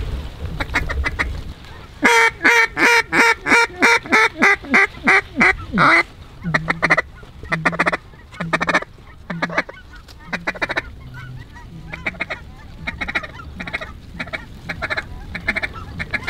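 Mallard duck call blown by a hunter: a loud run of about a dozen quacks at about three a second, followed by softer, spaced-out quacks, calling to a circling duck that then responds to it.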